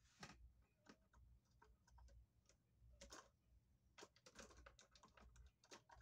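Near silence: room tone with a faint low hum and faint, irregular clicks and taps scattered throughout.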